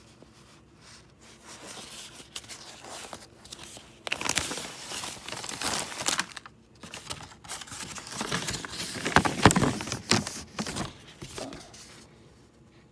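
Plastic packaging crinkling and rustling as a plastic-wrapped diamond painting canvas is handled and unwrapped. Soft at first, it becomes loud and busy about four seconds in, is loudest in the last third, and fades just before the end.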